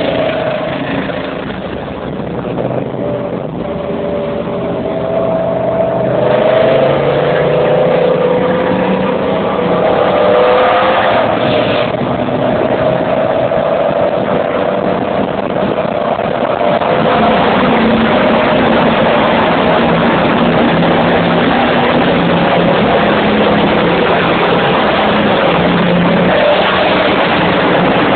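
Chevrolet Camaro SS's V8 exhaust heard from inside a following car, mixed with that car's own road and wind noise; the engine note rises and falls, and the sound grows louder about six seconds in and again past halfway. Near the end it is inside a road tunnel.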